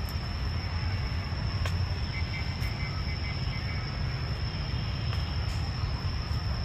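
Steady low rumble of city traffic, with a constant high-pitched whine above it and a few faint clicks.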